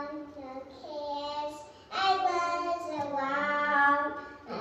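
A small girl singing into a handheld microphone: several short sung phrases with pauses between them, loudest about two seconds in.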